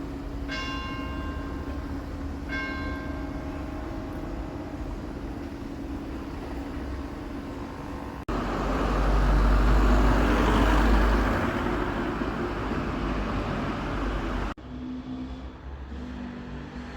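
Church bell tolling: two strikes about two seconds apart, each ringing on. About eight seconds in, an abrupt change to the loud rushing noise of a passing vehicle, and near the end a quieter stretch with a low hum.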